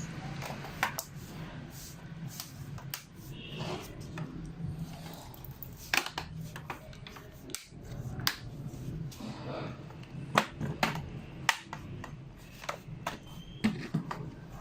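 Plastic back cover of an HP 255 G4 laptop being pressed onto the base, with scattered sharp clicks and snaps as its clips seat.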